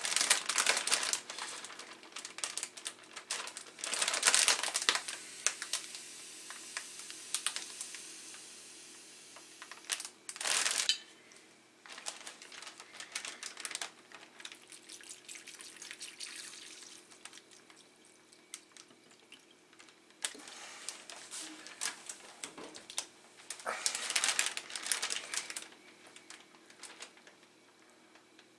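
Thin plastic zip-top bags rustling and crinkling in several bursts as a salted mullet roe sac is slipped into one, with water poured into the bag between the bursts.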